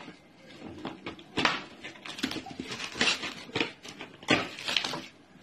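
Plastic cling film crinkling and rustling as it is pressed and smoothed into the cups of a metal muffin tin, in irregular scrunches.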